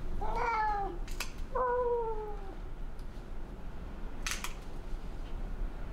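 Maine Coon cat yowling twice, each a drawn-out cry falling in pitch, in protest at having its claws clipped. Nail clippers snap shut with sharp clicks about a second in and again about four seconds in.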